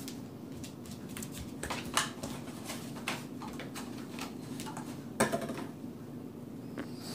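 A puppy nosing and mouthing at a cardboard beer case on a vinyl floor: scattered knocks, scrapes and clicks, the loudest knock about five seconds in.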